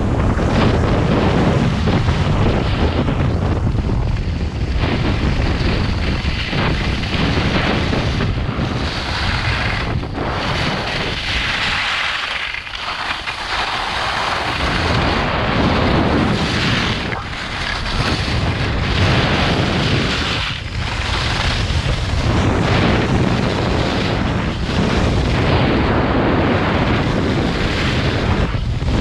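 Wind buffeting the microphone of a camera moving at skiing speed, together with the hiss of skis sliding on packed groomed snow. The rushing noise swells and eases through the turns, and the low buffeting drops away for a couple of seconds midway while the snow hiss comes forward.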